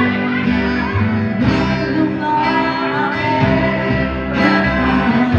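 Loud live music led by guitars, with a voice singing and sharp hits every second or two.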